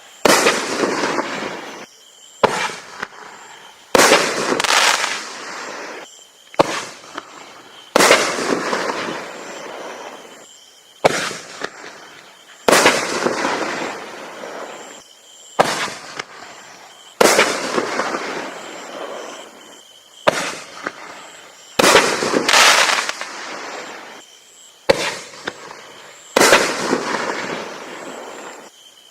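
Camo Blast consumer firework going off: a string of sharp bangs at uneven intervals of one and a half to three seconds, each followed by a noisy tail that dies away over a second or two.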